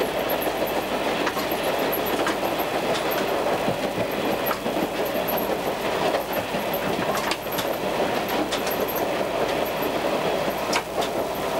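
Diesel railcar running along the track, heard from inside the driver's cab: a steady rumble of wheels and engine, with the clickety-clack of the wheels over rail joints about once a second.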